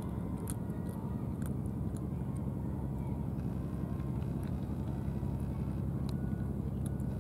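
A cat eating food from a plastic tray, its chewing heard as faint scattered clicks over a steady low hum.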